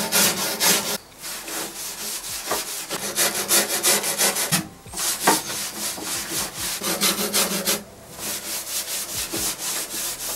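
Brass-bristle brush and fine steel wool scrubbing back and forth along the grain of a wooden table top wet with chemical stripper, lifting the last of the old finish out of the grain. Quick rasping strokes with a few short breaks.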